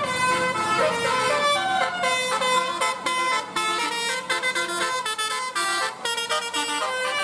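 Telolet bus horn playing a quick melody of changing notes, with a few short breaks between phrases.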